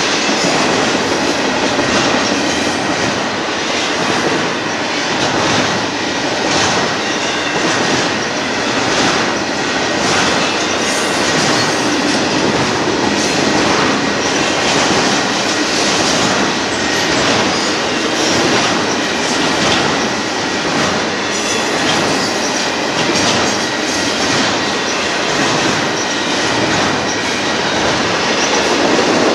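Union Pacific intermodal freight train's cars rolling past: a steady rumble and rattle of steel wheels on rail, with repeated clacks over rail joints and a faint thin wheel squeal held throughout.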